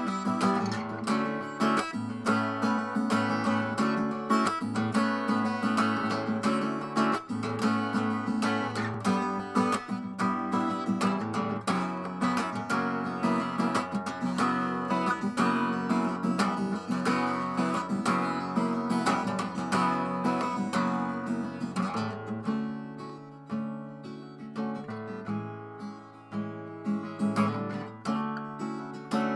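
Background music: strummed acoustic guitar, thinning to a quieter, sparser passage about three quarters of the way through.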